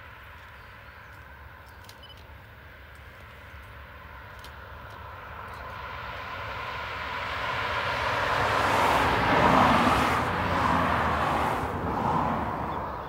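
A vehicle approaching and passing close by. Its noise swells steadily to a peak about nine or ten seconds in, then fades away quickly near the end.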